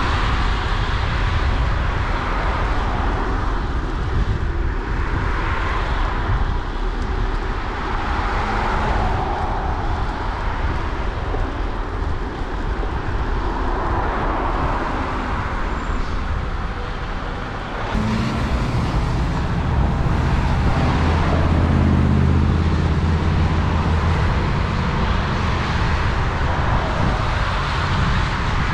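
Road traffic passing: cars going by one after another on a wet road, each a swish of tyres that swells and fades, over a steady low rumble. About two-thirds of the way through, a low engine hum comes in for several seconds.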